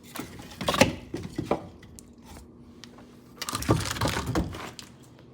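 Pieces of firewood being handled, knocking and cracking against each other in two clusters: one about a second in, another about four seconds in.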